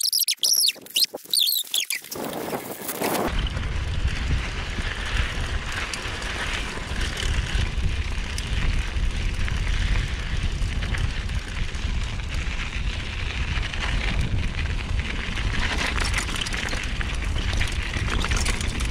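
Mountain bike descending a dry dirt trail: wind rushing over the camera microphone and tyres rolling and rattling over the dirt, setting in about three seconds in and running steadily. Before that, a few quick high chirps.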